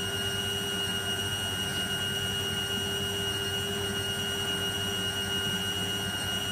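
Servis Slimline 308S washing machine running through its wash with water in the drum, the motor giving a steady whir with a constant whine over it.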